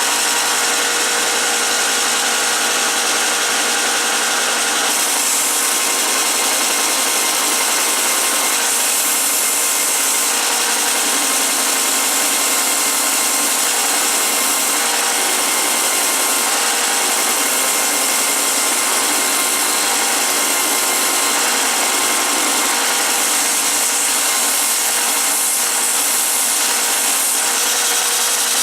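A bench combination belt/disc sander running steadily while a red alder cane handle is pressed against the coarse abrasive and ground to shape: a continuous rasping hiss over a faint steady motor whine.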